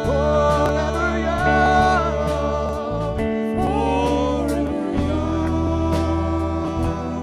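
Background music from a live acoustic band: plucked guitar and a steady bass under a wavering melody line.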